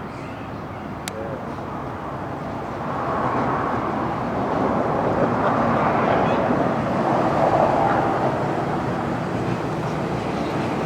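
Steady noise of a passing vehicle, growing louder from about two seconds in, with a single short click near the start.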